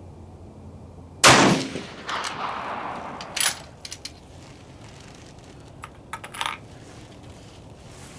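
A single rifle shot about a second in, its report echoing and dying away over the next two seconds. A few short, sharp clicks follow a couple of seconds later and again near the middle.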